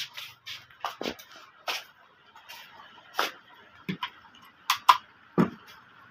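Handling noise: about a dozen irregular clicks and knocks, the sharpest pair near the end, over a faint steady hiss.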